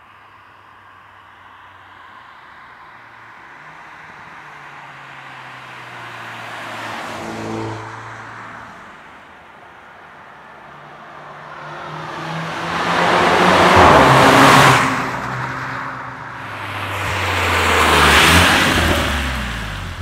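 Mercedes-Benz CLA 250 Shooting Brake's turbocharged 2.0-litre four-cylinder accelerating past on a wet road, its pitch climbing and then dropping at gear changes. It is loudest as it sweeps by, twice near the end, with tyre hiss from the wet surface.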